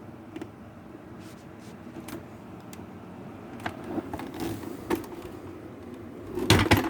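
Handling noise: scattered light clicks and knocks, then a quick cluster of louder knocks and clatter near the end.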